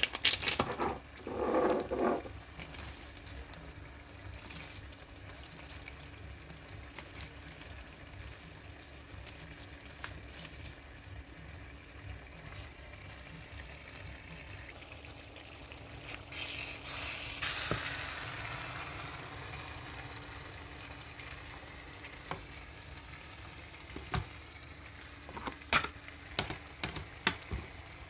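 Food frying in a pan with a steady sizzle. About 17 s in, a louder burst of sizzling swells and fades away over a few seconds. Sharp clicks and knocks come near the start and again near the end.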